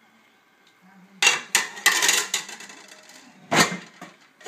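Metal pot lid and cooking pots clanging as a toddler bangs them: a quick run of clangs starting about a second in, then one more loud clang near the end.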